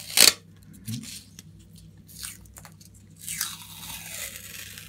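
Duct tape being peeled off a wall in short rips, the loudest one just after the start, then several fainter tugs and a longer peel near the end.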